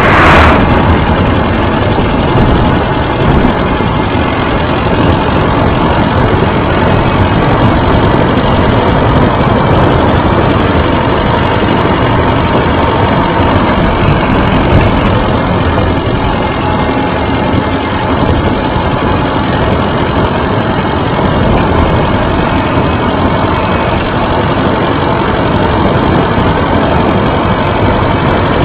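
Steady loud rumble and rattle of a low-mounted camera on a bicycle rolling over rough, patched asphalt. There is a sharp knock right at the start.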